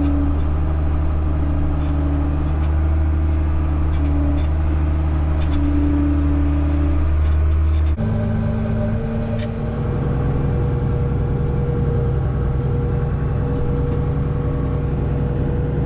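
Vehicle engine running steadily with a deep hum and a held tone above it. About eight seconds in, the sound changes abruptly to a different, rougher steady engine note.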